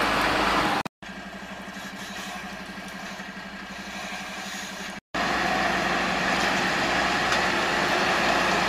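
MAN truck's diesel engine running steadily at low revs as the truck crawls forward. The sound breaks off briefly about a second in and again about five seconds in, and is quieter between the two breaks.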